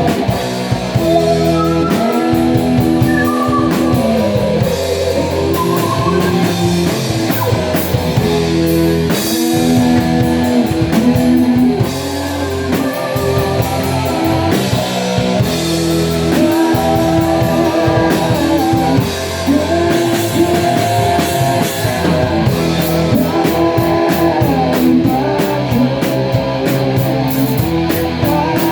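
A rock band playing: electric guitar lines with bending, held notes over bass and a drum kit.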